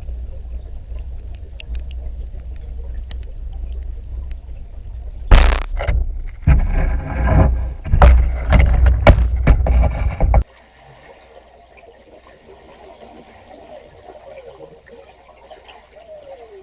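A low rumble, then about five seconds in loud splashing and sloshing of water right at the microphone, which cuts off abruptly after about five seconds. Faint falling chirps follow.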